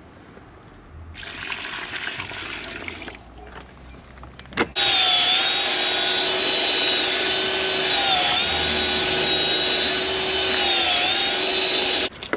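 A short rush of noise, then an electric mixer motor starts abruptly and runs with a steady whine while mixing sand, cement and lime render. Its pitch dips briefly twice as the mix loads it, and it cuts off suddenly near the end.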